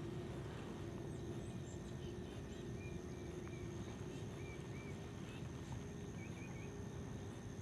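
Quiet outdoor ambience with a steady low hum, broken by a few short, faint bird chirps in the middle.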